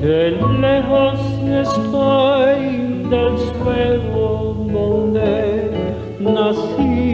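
Soundtrack song: a slow tune with a wavering, vibrato singing voice over a sustained bass and guitar.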